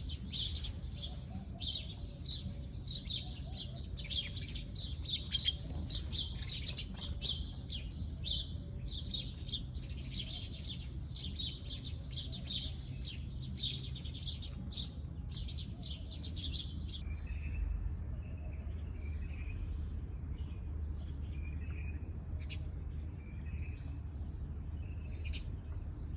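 Sparrows chirping: a dense run of rapid, high chirps for about the first two-thirds, thinning after that to scattered, lower chirps, over a steady low background rumble.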